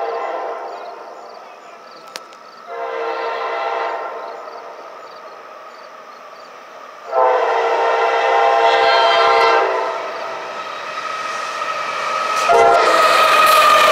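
Air horn of a CSX freight train's lead locomotive, a GE AC44CW, sounding a crossing warning in separate blasts of several tones together: one dies away in the first second, a short blast comes about three seconds in and a long one about seven seconds in, and a last blast starts near the end. Under that last blast the train's rumble and wheel noise rise as the locomotive reaches the crossing.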